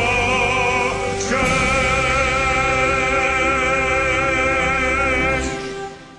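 Choral or operatic music with sung notes wavering in vibrato over a steady low bass; a new phrase comes in about a second in, and the music fades out near the end.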